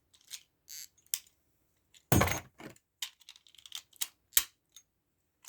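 Hard plastic Beyblade Burst tops and parts clicking and clacking, with a louder clatter about two seconds in and a sharp knock a little after four seconds in.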